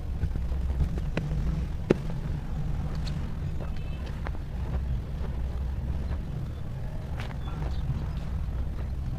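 Hands squeezing and crumbling dry cement powder and small lumps: scattered soft crackles and a few sharp snaps, one clear snap about two seconds in. A steady low rumble runs underneath and is the loudest sound.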